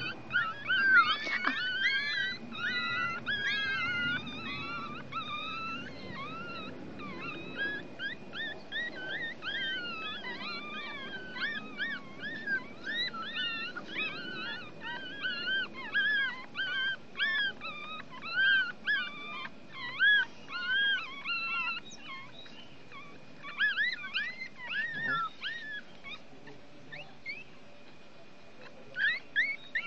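Newborn Chihuahua puppies, one week old, whimpering and squealing in a quick run of short high-pitched cries. The cries thin out about two-thirds of the way through, stop for a few seconds and start again near the end.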